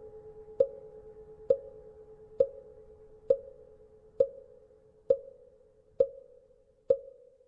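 Buddhist wooden fish (mõ) knocked at a slow, even pace, about once a second, eight strikes, each with a short ring. Under the knocks a temple bell's hum fades away.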